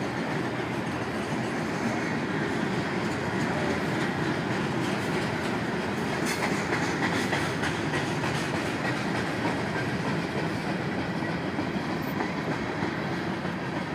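CSX freight train's cars (hoppers and boxcars) rolling past: a steady rumble of steel wheels on rail with wheel clatter, a little louder about halfway through.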